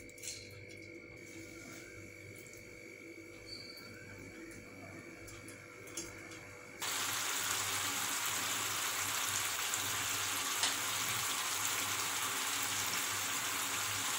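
Curry gravy simmering and sizzling in a frying pan: a steady hiss that starts suddenly about seven seconds in. Before that there are only a few faint soft taps as fried egg patties are set into the thick gravy.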